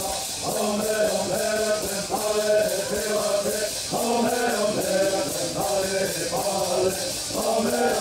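Men's voices singing a Southern California bird song in unison, accompanied by gourd rattles shaken in a steady, even beat.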